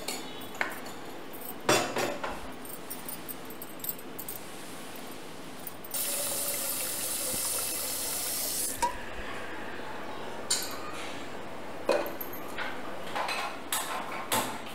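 Kitchen work: steel utensils and pots knocking and clinking, with a sharp metal knock about two seconds in. A tap runs into the steel sink for about three seconds in the middle. More clanks near the end as the aluminium pressure cooker's lid is handled.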